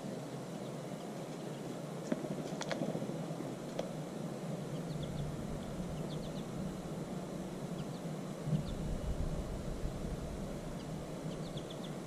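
Outdoor woodland background with a steady noise and a low rumble that swells past the middle, with short, high bird chirps scattered through it and a couple of sharp clicks a few seconds in.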